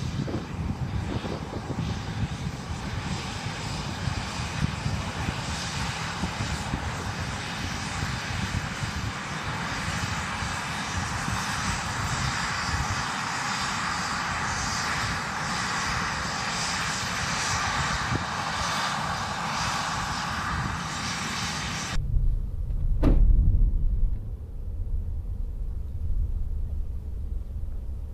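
Steady, loud hissing rush of smoke pouring out of Screening Obscurant Modules on an unmanned utility vehicle, over a low rumble. About three quarters of the way through it cuts off to wind rumbling on the microphone, with one sharp pop soon after.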